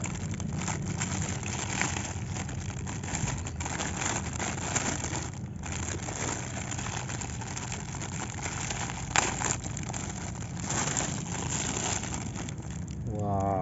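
Clear plastic bag crinkling and rustling as a plastic toy mask is worked out of it, with a sharper crackle about nine seconds in. A steady low hum runs underneath.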